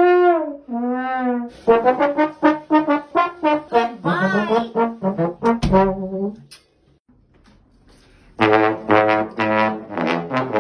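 A brass instrument played as comic sound effects. It plays a fast run of short notes with a rising glide near the middle, pauses for about two seconds, then plays a quick, rhythmic string of notes.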